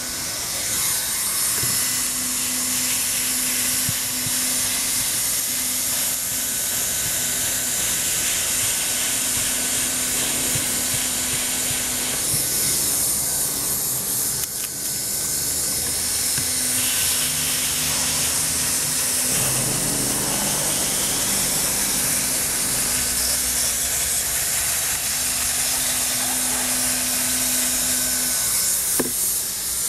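Handheld hot-air plastic welder blowing a steady hiss while heat-welding the flange of a TPO pipe flashing to TPO roofing membrane, with a low hum that comes and goes.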